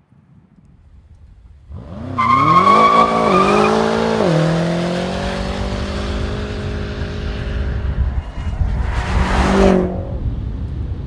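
BMW M6 Gran Coupé's twin-turbo V8 revving hard through a drift: after a swelling rumble the engine note climbs and drops twice as it shifts up, with a high, steady tyre squeal over the first climb, then holds a steady high pitch as the spinning rear tyres slide. A short loud rushing burst comes near the end.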